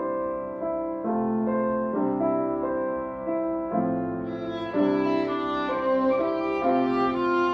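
A grand piano playing chords, joined by a violin about four seconds in.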